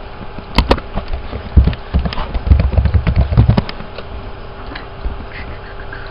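Two sharp clicks, then a quick run of computer keyboard keystrokes lasting about two seconds, over a faint steady hum.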